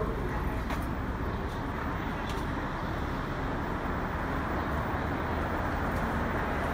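Steady hum and hiss of an R62A subway train standing at the platform with its doors open, its equipment idling, with a few faint ticks.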